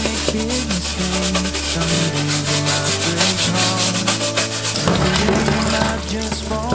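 A small brush scrubbing a dishwasher's metal mesh filter coated in baking soda and dish detergent: quick, repeated rasping strokes of bristles on the mesh, over background music.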